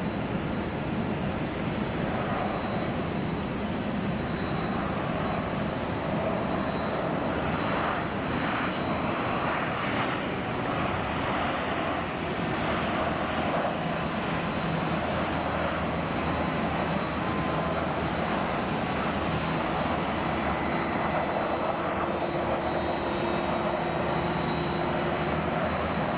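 Boeing 737-600 airliner's CFM56-7B jet engines running as it touches down and rolls out along the runway: a steady jet rush with a thin high whine, louder from about eight to fourteen seconds in.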